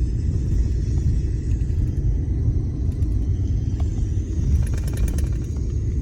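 Four-wheel-drive pickup truck driving on snow-covered roads, heard from inside the cab: a steady low rumble of engine and tyres.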